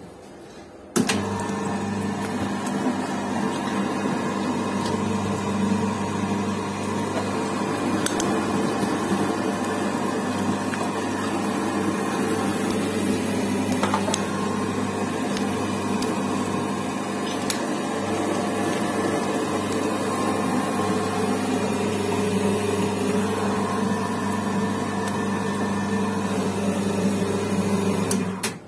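Electric stainless-steel meat grinder starts suddenly about a second in and runs steadily with a low motor hum while it minces chunks of red meat, then stops just before the end. A few sharp clicks stand out along the way.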